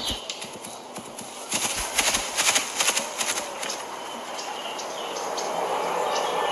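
A horse's hooves clip-clopping on paving stones for the first few seconds, then dying away into a soft steady background that slowly grows louder.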